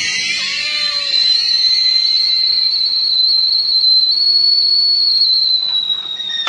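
Stovetop kettle whistling at the boil: one steady, high, shrill whistle that cuts off suddenly at the end.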